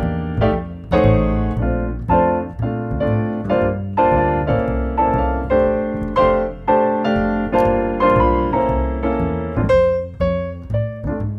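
Background piano music, with notes struck in a steady rhythm.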